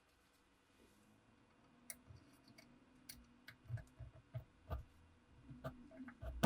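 Irregular metallic clicks and light knocks from hands handling the old Webley revolver and its parts, beginning about two seconds in, with the loudest knock at the very end.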